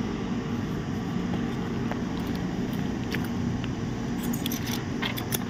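Steady low background hum, with a few faint light clicks about four to five seconds in.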